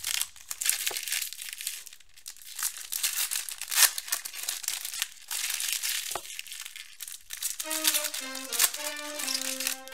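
Foil trading-card pack wrappers being torn open and crinkled by hand: an irregular, high-pitched crackling rustle with sharper rips now and then.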